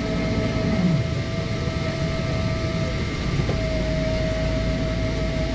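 Cabin noise inside a Boeing 777-300ER rolling on the ground after landing: a steady low rumble with a steady high whining tone over it.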